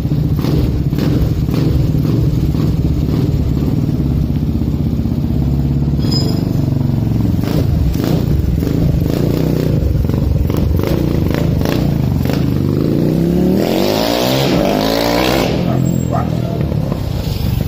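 Honda CBX Twister's single-cylinder four-stroke engine, built up to 330cc, running at idle. About thirteen seconds in it revs up in a rising pitch that breaks off sharply some two seconds later.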